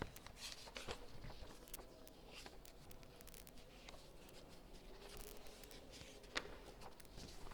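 Faint scratching strokes and small taps of handwriting, with one sharper click about six seconds in.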